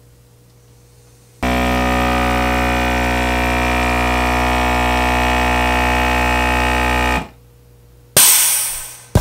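Small 12 V DC air pump switching on and running with a steady electric buzz and hum for about six seconds while it charges the air tank of a remote candle-snuffer, then cutting off abruptly. Near the end a sudden loud noisy burst fades over about a second.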